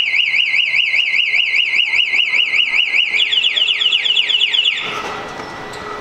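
Scooter anti-theft alarm siren sounding: a loud, fast warbling tone for about three seconds, then a rapid run of falling chirps, stopping about five seconds in.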